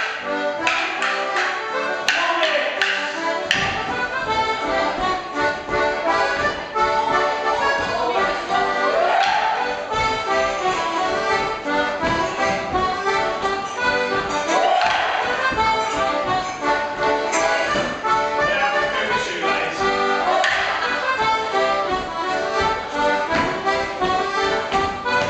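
Live Morris dance tune played throughout, with sharp clacks of wooden dance sticks struck together in the first few seconds.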